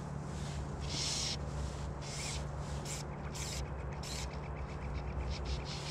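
A fly reel's clicking drag buzzing in short bursts as a hooked trout pulls hard and takes line, about six or seven runs in a few seconds, over a low steady hum.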